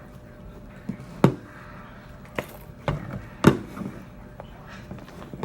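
Homemade slime being worked by hand, with a series of sharp slaps: about six in three seconds, the loudest near the middle, then another shortly before the end.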